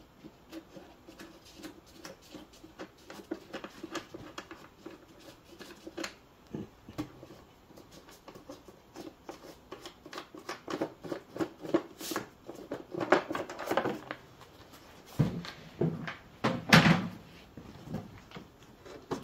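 Plastic air filter cover on a riding mower engine being unclipped and lifted off, then the filter pulled out: a run of light clicks and knocks, with a few louder knocks around the middle and toward the end.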